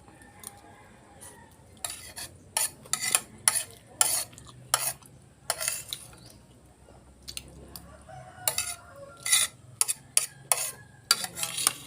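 Metal spoon and fork scraping and clinking against a plate while eating, in a dozen or so short, sharp strokes: a cluster in the first half and another near the end.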